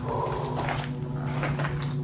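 Night insects, crickets, chirping steadily over a low steady hum.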